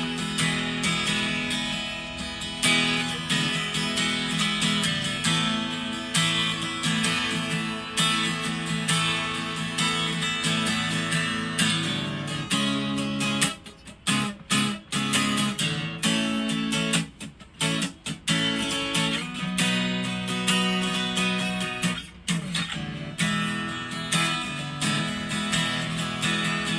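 Tanglewood TWUDCE steel-string acoustic guitar strummed, its chords ringing out. The strumming breaks off briefly a few times around the middle before carrying on.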